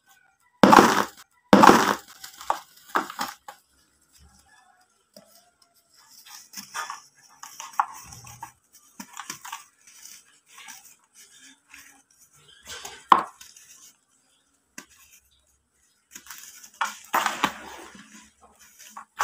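Dry balls of packed yellow-brick dust crushed by hand in a tub: two loud crunches about a second apart near the start, then scattered crumbling of dry chunks and trickling powder. Another sharp crunch comes about two-thirds of the way through, with more crumbling near the end.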